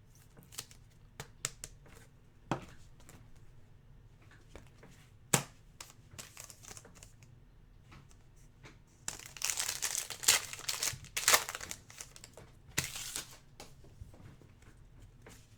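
A trading card pack's wrapper crinkling and tearing open, with light ticks of card handling in the first half. The crinkling is densest from about nine seconds in, with one more burst near the end.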